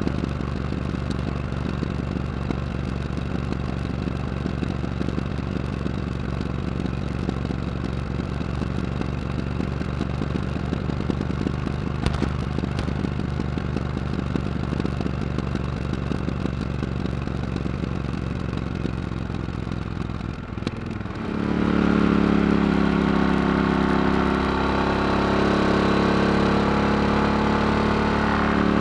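Yamaha XT1200Z Super Tenere's parallel-twin engine running through a Yoshimura RS-4 exhaust with the baffle removed, a steady, even note at first. About three-quarters of the way through the sound dips briefly, then comes back much louder as the throttle opens, the pitch rising and falling.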